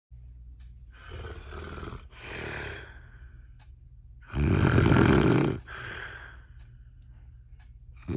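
A woman snoring loudly in her sleep. There are snoring breaths about a second in and a much louder one about four seconds in, each followed by a shorter, softer breath, and another loud snore starts at the very end.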